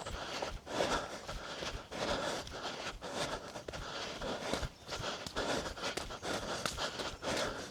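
A runner breathing in a steady rhythm close to the microphone, with footfalls on a slippery, muddy trail.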